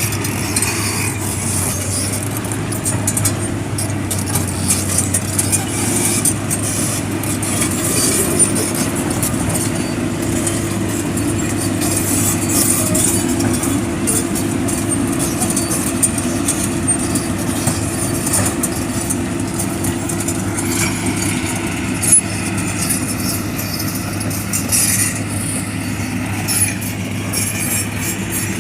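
Komatsu excavator's diesel engine running steadily with a constant low hum and a hiss above it; the machine has a failed turbocharger.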